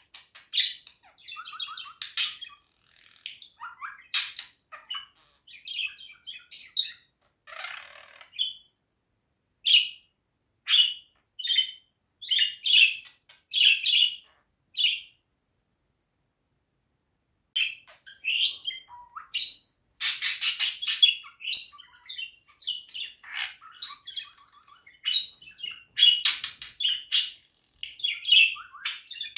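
Budgerigar chattering: a fast run of short high chirps and clicks, breaking off for about two seconds a little past the middle, then resuming in its loudest, densest stretch.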